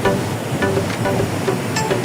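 Background music of short plucked notes over a steady beat.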